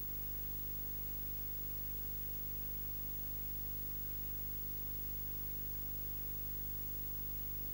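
Steady electrical hum and hiss with no sound from the room: the camcorder's microphone was unplugged while recording. The hum is low and buzzy, with many overtones, and it does not change.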